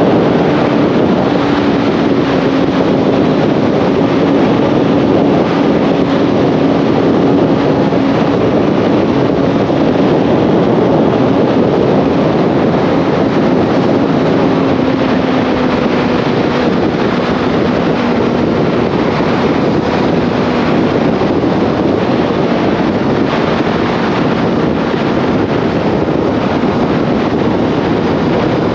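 Motorcycle riding at speed: wind rushing over the microphone, with the engine's steady note underneath drifting slowly lower.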